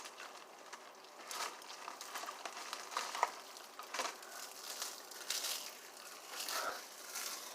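Irregular crinkling and crackling as a dried seaweed snack and its packaging are handled.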